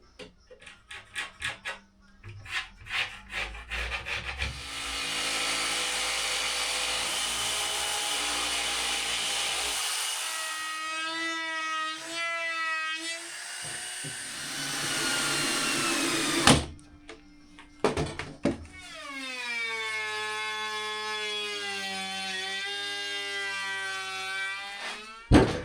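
A power saw cutting wood in two runs, the first long and the second shorter, its pitch wavering and dropping as the blade bites. Taps and knocks of handling the workpiece come before and between the cuts.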